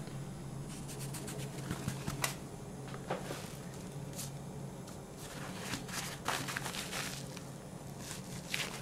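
A paper napkin wiping and handling the oily rubber drive belt of a CD tray: soft rubbing with scattered small clicks, over a steady low hum.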